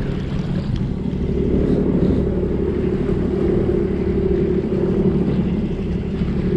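Sea-Doo Spark jet ski engine running steadily at a low, even pitch while the craft moves slowly, with a little wind on the microphone.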